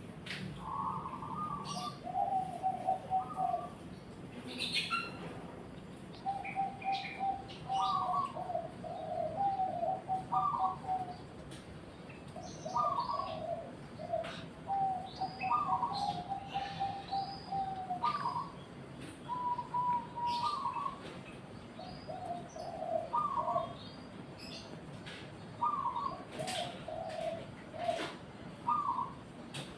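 Zebra dove (perkutut) cooing over and over in short warbled phrases, one every two to three seconds, with scattered higher chirps from a yellow-vented bulbul (trucukan).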